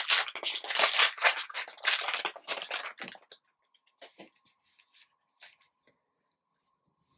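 Foil wrapper of a Topps Star Wars Return of the Jedi Black & White trading card pack crinkling and tearing as it is ripped open by hand, for about three seconds. It then goes much quieter, with a few scattered light rustles and ticks as the cards are slid out and handled.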